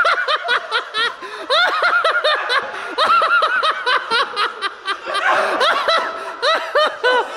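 Several men laughing hard together, in quick repeated bursts.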